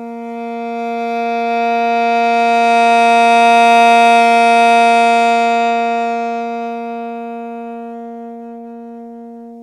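Alto saxophone holding one long tone on a written G (sounding B-flat), played with a D'Addario 7M mouthpiece and a 3 Hard reed. It swells from soft to loud, peaks about four seconds in, then fades back down, a long-tone crescendo and decrescendo, and the tone grows brighter as it gets louder.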